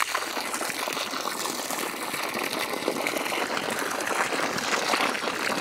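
Water gushing in a steady rush from the open forestry coupling of a pond-fed red yard hydrant at about 30 to 35 PSI, the jet splashing onto gravel.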